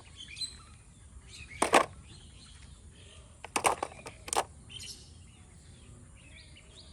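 Plastic toys knocking and clacking as they are set down onto toy trucks: a few sharp knocks, two of them close together. Birds chirp faintly in the background.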